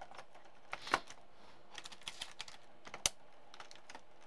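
Small clicks and light clatter of spare iPhone parts, batteries and screen pieces, being picked up and set down, with two sharper clicks about a second in and at about three seconds, over a steady low hiss.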